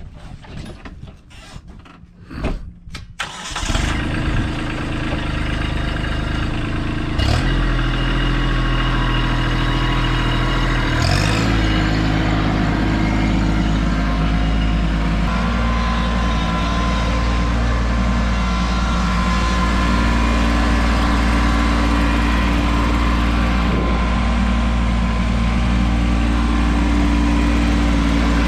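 Tractor engine starting about three and a half seconds in, after a few clicks and knocks, then running steadily. Its speed steps up about seven seconds in and again about eleven seconds in, then holds.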